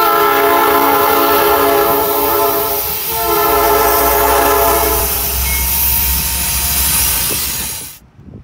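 Diesel locomotive's air horn sounding two long blasts, a chord of several steady notes, with a short break about three seconds in, over the locomotive's low engine rumble. Both stop abruptly near the end.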